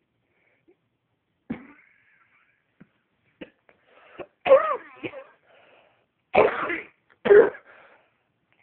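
A person coughing and clearing their throat: a few short, separate coughs, the loudest ones in the second half.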